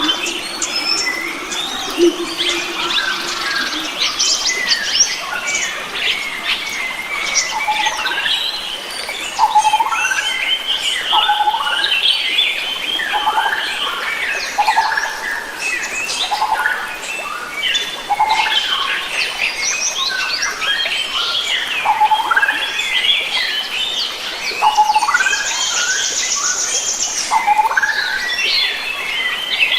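Many wild forest birds singing and calling together, a dense chorus of chirps, whistles and trills, with a high buzzy trill about 25 seconds in.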